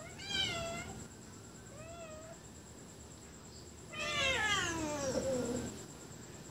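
Domestic cat meowing three times: a short meow at the start, a fainter short one about two seconds in, and a long, louder meow from about four seconds in that slides down in pitch.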